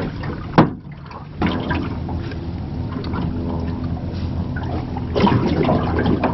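Water lapping and sloshing against a small aluminium boat's hull, over a steady low hum. A single sharp knock comes about half a second in.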